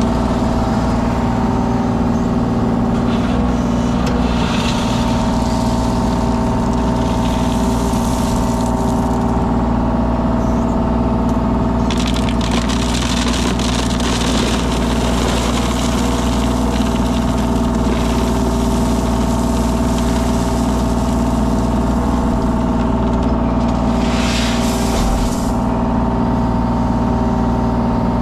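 Engine of a compact landscaping machine running steadily, with several passages of rough scraping and rattling as decorative stone is scooped and loaded.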